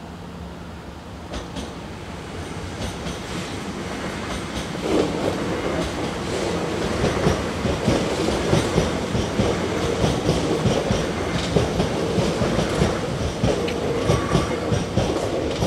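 Blue-and-yellow NS electric passenger train running across a level crossing. The rolling noise builds over the first few seconds as it approaches. From about five seconds in it is loud, with a rhythmic clickety-clack of wheels over the track as the carriages pass.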